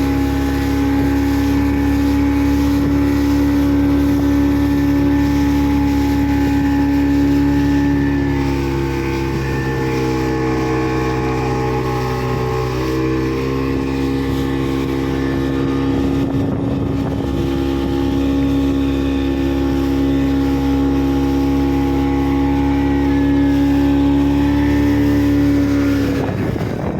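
Motorboat engine running steadily at speed, with a near, loud, even hum that shifts slightly in pitch now and then.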